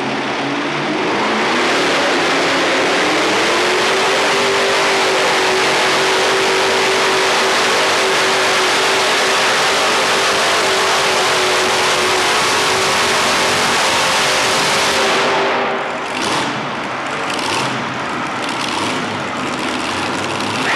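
Multi-engine modified pulling tractor with big-block 454 Chevrolet V8s running at full throttle down the track: the pitch climbs over the first few seconds and then holds a steady high scream. About fifteen seconds in it cuts off, followed by a few short throttle bursts.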